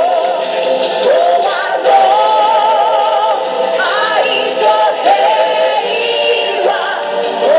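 Yosakoi dance music with a sung melody, loud and continuous, the held notes wavering and gliding between pitches.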